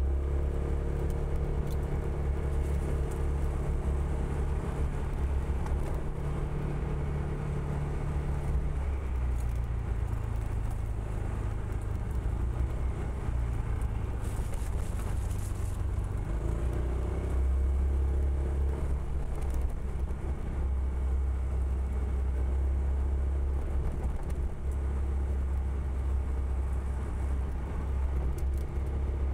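Honda PCX160 scooter's single-cylinder four-stroke engine running under way, its note dropping in pitch about a third of the way in and growing stronger a little past halfway. A brief hiss about halfway through.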